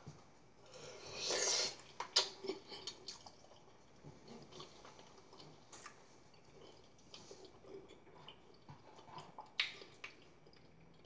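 Spoon clicking and scraping against a bowl, with quiet chewing between. There are sharp clicks about two seconds in and near the end, and a brief rustling hiss about a second in.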